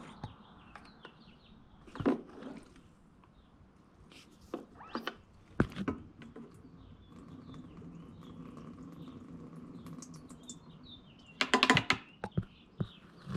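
Gas cans and a siphon hose being handled: scattered knocks and clatters, with a cluster of rattling near the end.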